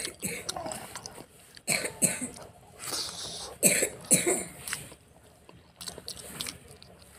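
A man coughing several times and clearing his throat as he eats spicy pork curry, short sharp bursts, the loudest about halfway through.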